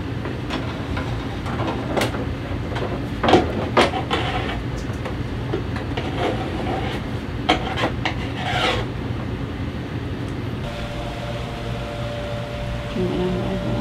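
Electrical cable being pulled by hand through an overhead access cavity, rubbing and scraping against the panel edges with scattered knocks, over a steady low hum.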